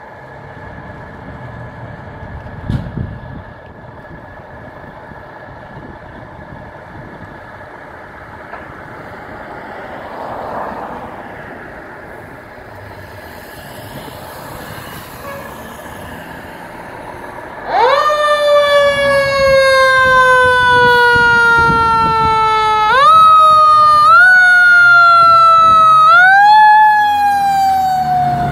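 1995 KME fire engine idling in its bay, with a thump about three seconds in. About two-thirds of the way through its siren comes on loud: the pitch jumps up quickly, falls slowly over several seconds and is pushed back up three more times as the engine pulls out.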